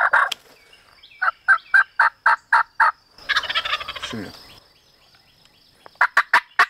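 Wild turkeys calling: a short call at the start, then a steady run of about eight yelps, a longer rough call about three seconds in, and another fast run of yelps near the end.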